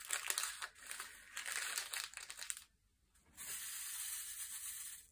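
A small plastic bag of diamond-painting drills crinkling and rustling as it is handled over a plastic tray, with small clicks. About two and a half seconds in the sound cuts out briefly, and a faint steady hiss follows.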